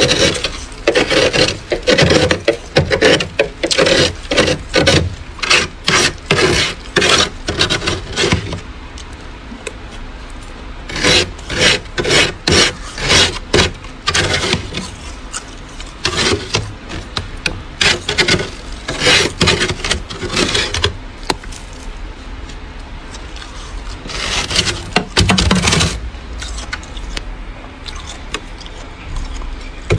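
Metal spoon scraping thick frost off a freezer's walls and floor, in runs of quick rasping strokes with short pauses between them.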